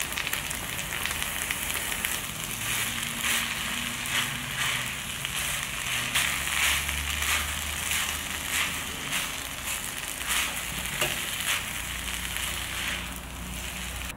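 Kimchi fried rice sizzling in a frying pan while a silicone spatula stirs and presses it, with many short scraping strokes over the steady sizzle. The sizzle drops away near the end.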